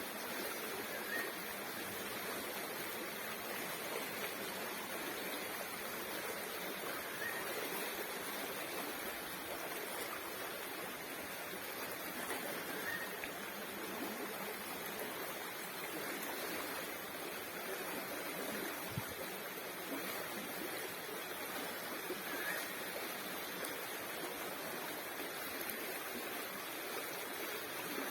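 Steady rush of flowing water, with a faint short high chirp every few seconds.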